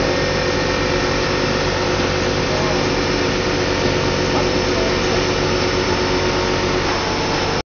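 Steady running noise of an extrusion blow moulding machine on the factory floor: an even hum with several constant tones over it, cutting off suddenly near the end.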